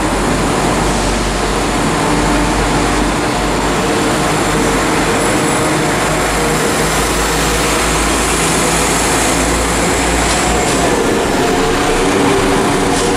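Class 172 Turbostar diesel multiple unit pulling away from the platform and picking up speed, its diesel engines running loud under load with a deep rumble. A few sharp clicks come from the wheels over the track near the end.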